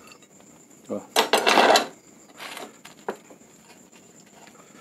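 A glass bowl of crisp fried crickets being handled: a sudden scrape and clatter lasting about a second as the bowl and crickets are worked over the flat pan, then a softer rustle and a small click.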